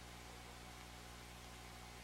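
Faint steady hiss with a low electrical hum: the recording's background noise, with no distinct event.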